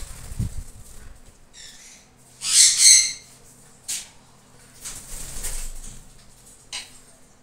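Sun conures screeching: a loud, harsh double call about two and a half seconds in, with shorter calls before and after it.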